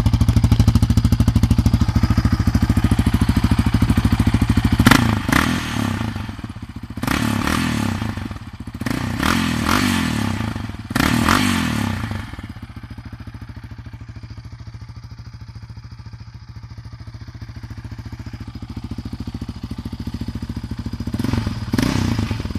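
Yamaha Raptor 700R's single-cylinder four-stroke engine idling through its exhaust. It is revved four times in quick succession about five seconds in, then settles back to a quieter idle, with one more short blip near the end.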